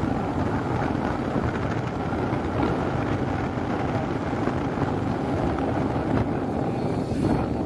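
Yamaha sport motorcycle running at a steady road speed, with wind rushing over the microphone.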